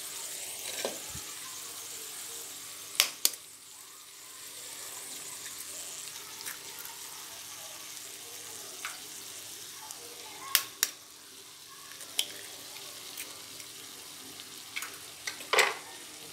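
Oil sizzling softly and steadily in a steel kadhai of cooked grated bottle gourd. Twice a pair of sharp taps rings out as eggs are cracked on the pan and dropped in.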